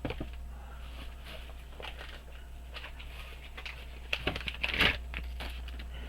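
Small clicks and taps of metal watchmaker's tools and parts being handled and set down on a bench, with a cluster of sharper clicks about four seconds in, over a low steady hum.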